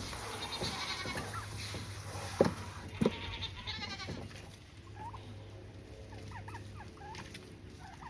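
Goats bleating and chickens clucking, with two sharp knocks about two and a half and three seconds in.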